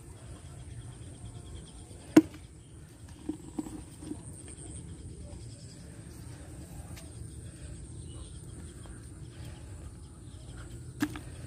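Insects trilling steadily at a high pitch over a low rumble. A sharp click about two seconds in, a few softer knocks just after it, and another click near the end.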